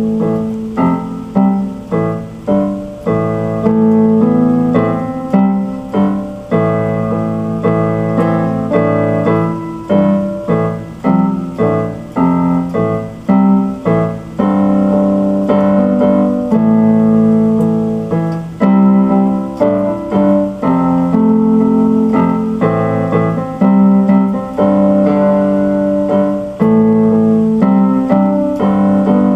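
Piano or electric keyboard music playing a run of notes and chords.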